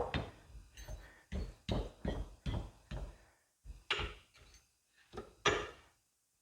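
A dozen or so irregular knocks and clunks as hydraulic cylinder parts are handled and fitted together during reassembly. The loudest comes right at the start and another about five and a half seconds in.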